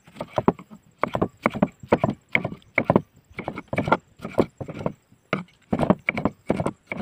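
Kitchen knife slicing a tomato into wedges on a wooden cutting board, the blade knocking on the board about twice a second.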